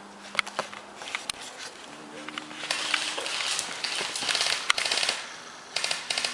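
Airsoft guns firing: a few single sharp cracks, then rapid bursts of clicking shots from about three seconds in.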